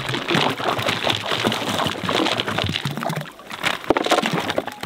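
Small rocks poured from a plastic bag into shallow pond water: a rush of splashing and clattering stones that eases off about three seconds in, followed by a few last stones plopping in.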